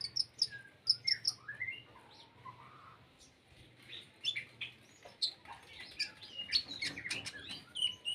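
Konin songbird singing a varied song of short chirps and quick rising and falling whistled phrases, which the title calls metallic and filled with mimicked cricket and forest-bird calls.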